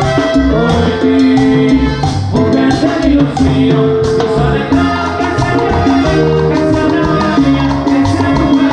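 Live Latin dance band playing: timbales struck with sticks, with a horn section, bass and other percussion.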